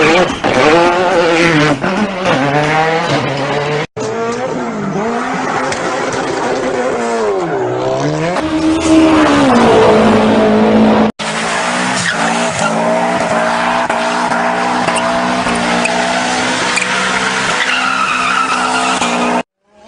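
Rally car engine revving up and down in swoops, with tyre skidding, in short clips cut together with abrupt breaks. In the last clip the engine holds a steadier note that rises slowly.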